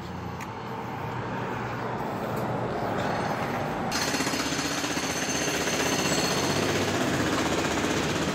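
Rapid, continuous mechanical rattling and hammering, getting louder over the first several seconds and then holding steady.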